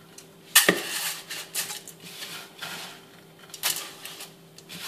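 Handfuls of dry, oil-coated angel-hair vermicelli being dropped by gloved hands into the metal steamer basket of a couscoussier. There is a sharp knock against the metal about half a second in, then several short rustling swishes.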